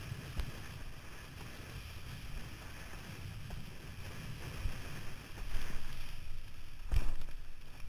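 Wind buffeting the microphone while a windsurf board planes over choppy water, with a steady rumble and the hiss of water rushing past. A few sharp thumps break through, the loudest about seven seconds in, as the board slaps the chop.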